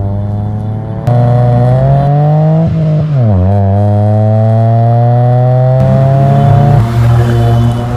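Exhaust note of a 2015 Mitsubishi Mirage's three-cylinder engine through an aftermarket full exhaust system, accelerating hard. The pitch climbs, drops sharply about three seconds in at an upshift, then climbs again.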